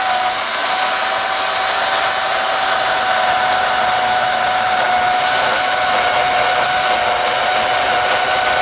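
Kobalt battery-powered chainsaw's electric motor running steadily at speed: a loud, even whine that holds one pitch throughout.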